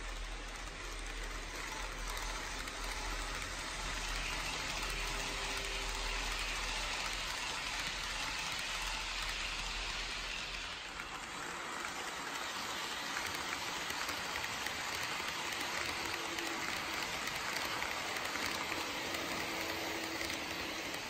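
N-gauge model train (KATO E001 Shiki-shima) running on layout track: a steady hissing rattle of small wheels and motor. A low hum underneath drops away about halfway through.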